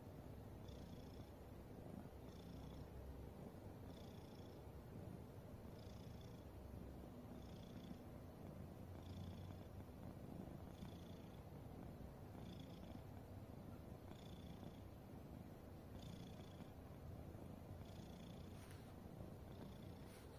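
Domestic cat snoring softly in its sleep: a faint low rumble with a thin high whistle on each breath, roughly every two seconds.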